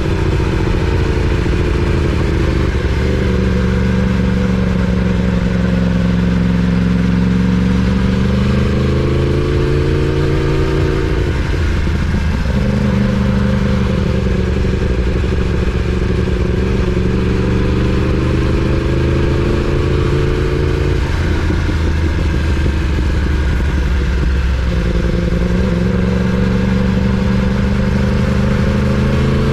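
2019 Yamaha R1's crossplane inline-four engine running at low cruising speed. Its note rises slowly and drops back several times as the throttle changes.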